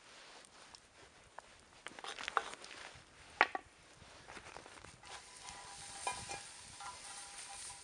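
Wooden spoon stirring ground venison and vegetables in a cast-iron Dutch oven, with scraping and a few sharp knocks against the pot in the first half, then a quieter steady hiss.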